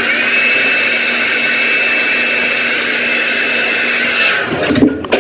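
Hand-held hair dryer running, a steady rush of air with a high whine, switched off about four seconds in.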